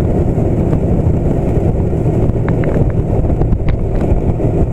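Small fishing boat under way: a steady, loud low rumble of its motor mixed with wind buffeting the microphone, with a few faint clicks.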